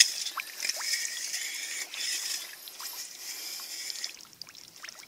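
Wet mud squelching and water trickling as a hand digs into waterlogged mud beside an eel-spearing rod, with small scattered clicks; it fades after about four seconds.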